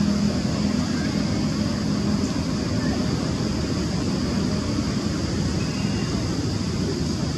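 Steady outdoor background noise: a low, even rumble with a constant high hiss above it.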